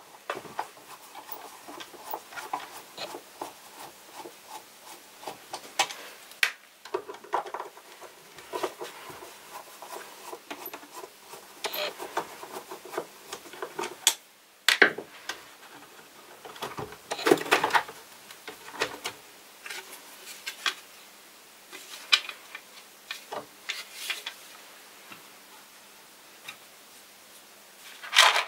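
A screwdriver turns out screws from the plastic underside of a Vorwerk VR100 robot vacuum, giving irregular clicks, scrapes and knocks as the screws and plastic housing are handled. Near the end there is a louder, rattling clatter of small metal parts.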